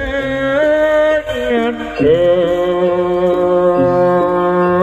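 Traditional Javanese music for a singo barong troupe: a held, ornamented melody line over steady lower tones. There is a short dip about two seconds in, then one long held note.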